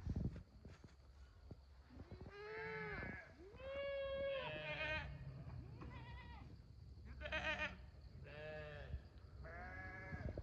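Goats and sheep of a mixed Gaddi flock bleating: about seven separate calls, one with a wavering, quavering pitch. A short knock sounds right at the start.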